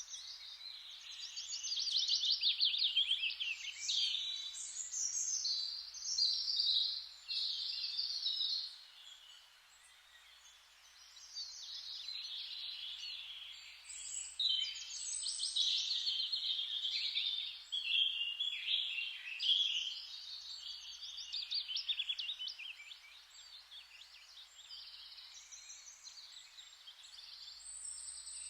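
Forest ambience: many songbirds chirping and trilling over a faint steady hiss, with a lull about ten seconds in before the birdsong picks up again.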